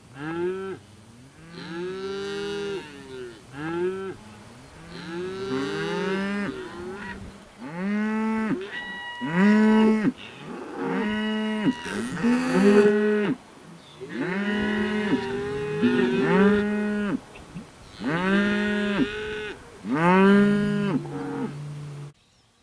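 A herd of black beef cattle, cows and calves, mooing again and again, with many calls overlapping. Each call rises and then falls in pitch. The sound cuts off abruptly near the end.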